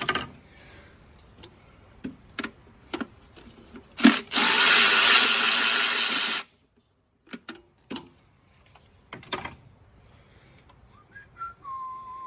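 Power ratchet running in one steady burst of about two seconds, turning a fastener on the engine, between scattered clicks and knocks of tools against metal. A short thin whistle-like tone sounds near the end.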